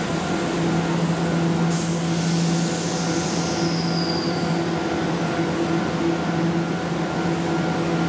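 Keihan electric train running at a station with a steady low hum. A short hiss comes about two seconds in, then a high whine that falls in pitch over about two seconds.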